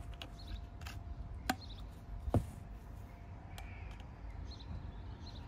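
White plastic pedestal-fan stand parts clicking and knocking as they are fitted together by hand, with a sharp click about a second and a half in and a louder knock a little later.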